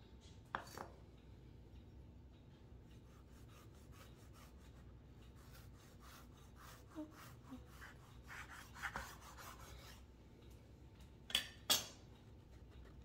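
Kitchen knife sawing through a tile sponge on a wooden cutting board: a run of faint, quick rasping strokes. There is a sharper knock about half a second in, and two louder knocks shortly before the end.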